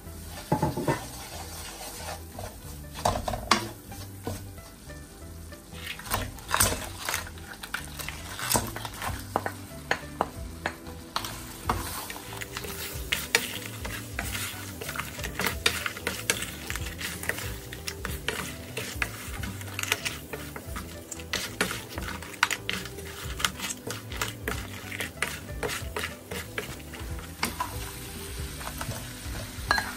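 Wooden spoon stirring spice paste and crab pieces through hot oil in a non-stick wok: a steady sizzle with frequent knocks and scrapes of the spoon against the pan and the crab shells.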